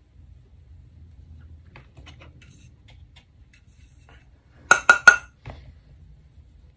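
Three quick, sharp clinks of hard makeup items knocking together, with a fainter clink just after, about two thirds of the way in. A few faint ticks of handling come before them.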